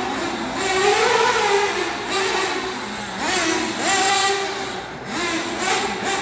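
Nitro engine of a 1/8-scale Tekno NB48.3 buggy, a Novarossi with a tuned pipe, revving high as the buggy laps the track. Its pitch rises and falls with the throttle and climbs sharply about three and five and a half seconds in.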